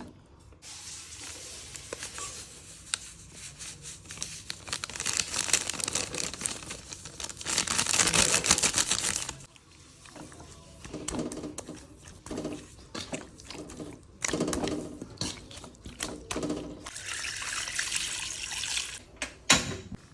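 Water running and splashing in bursts, with uneven knocking and handling noise in between.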